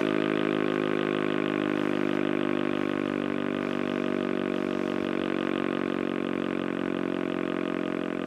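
ASC OM-117 outdoor warning siren sounding a steady, chord-like wail with a fast flutter, holding its pitch and fading slightly over the seconds.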